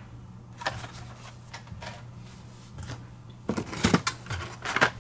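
Blister-carded Hot Wheels cars being handled and pulled from a cardboard shipping case: scattered plastic-and-card clicks and rustles, with a bunch of louder clacks a little past halfway and another just before the end. A steady low hum runs underneath.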